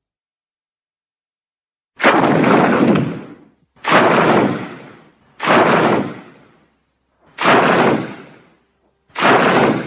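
Kaiju sound effect for the Griffon monster: a series of loud, noisy impacts, each with a sudden start and a fading tail, about one every one and a half seconds, beginning about two seconds in.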